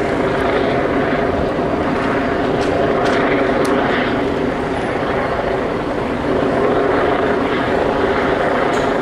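Steady, unbroken drone of a helicopter overhead, mixed with street traffic noise.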